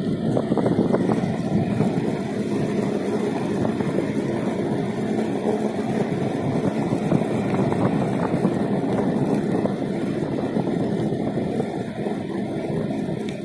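Steady rolling noise of wheels travelling over fresh asphalt, a rough continuous rumble that eases slightly near the end.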